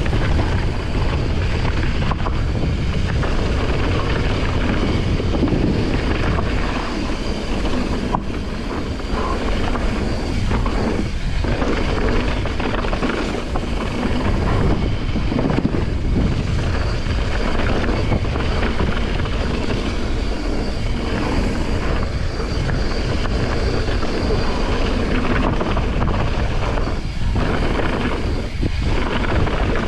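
Wind buffeting an action camera's microphone and mountain bike tyres rolling fast over a dirt and gravel trail, a steady loud rush with a few brief lulls.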